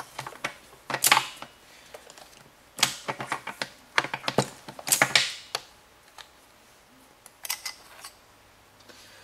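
Small metal parts of a 2005 Mazda 3 five-speed manual transmission clicking and clinking as they are handled and worked loose by hand, in several quick clusters of sharp clicks with pauses between.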